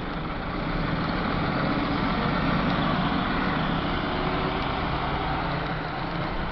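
Street noise dominated by a large motor vehicle's engine running close by, with a steady low hum that swells louder from about a second in and eases off toward the end.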